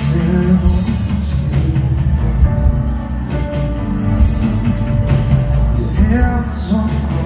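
Live band playing a song: electric guitars, drums and keyboards, with a male singer's vocals.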